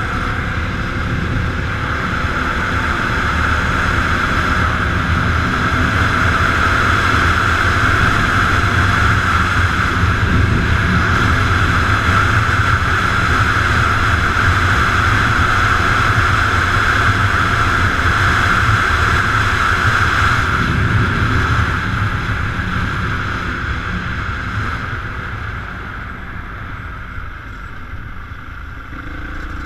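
Dirt bike engines running steadily while riding, with a constant rushing noise; the sound eases off and gets quieter about two-thirds of the way through.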